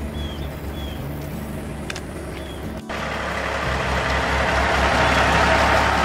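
Heavy diesel engines running with a steady low rumble. After a cut about three seconds in, a semi truck's engine runs louder, with a hiss that grows stronger toward the end.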